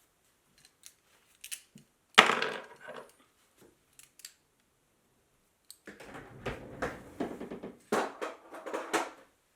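Tools and parts being handled on a workbench: a few light clicks, a sharp knock about two seconds in, then a few seconds of steady clattering and rattling toward the end.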